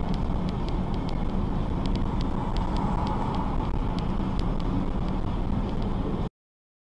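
Steady road and engine noise inside a moving car's cabin, with a string of faint light ticks, cutting off suddenly near the end.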